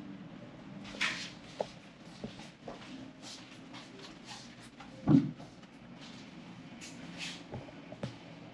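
Scattered light knocks and short rustles, with one louder thump about five seconds in.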